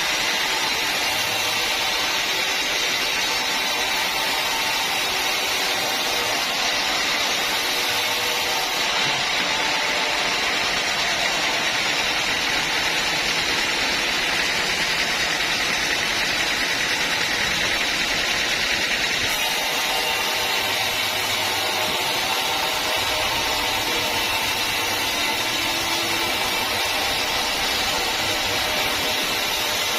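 Sawmill saw running steadily through teak wood, an even machine drone with a hissing cut that holds at one level throughout.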